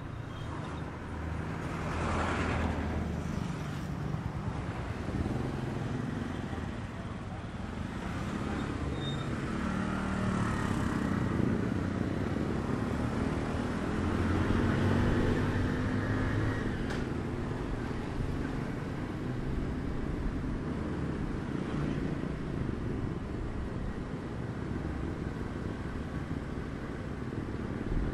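Motor scooter engine running on the move, its pitch rising and falling with the throttle, over a steady haze of road noise. It gets louder about midway through.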